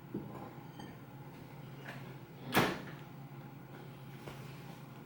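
Handling of small fragrance sample packets, with one sharp knock about two and a half seconds in and a few fainter clicks, over a low steady hum.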